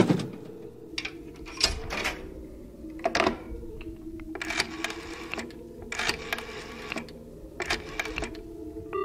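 Sound effects of a telephone booth being used: a string of mechanical clicks and short rattles as the handset is handled and a number is dialed, over a steady hum. A telephone ringing tone starts just at the end.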